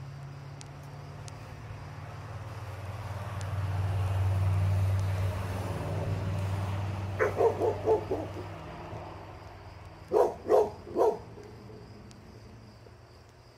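Labrador retriever barking: a quick run of four barks about seven seconds in, then three loud barks a few seconds later. Under the first half, a low hum swells and fades.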